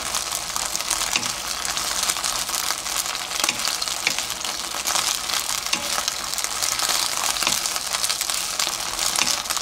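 Shishito peppers sizzling in a little oil in a nonstick frying pan, stirred with a wooden spatula: a steady crackling sizzle dotted with short ticks as the spatula moves them.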